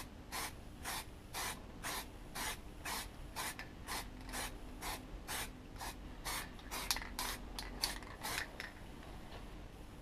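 Aerosol can of red primer sprayed in short hissing bursts, about two a second, stopping shortly before the end.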